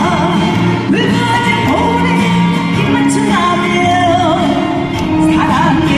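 Live trot song: a woman singing held notes with wide vibrato over a band backing with bass.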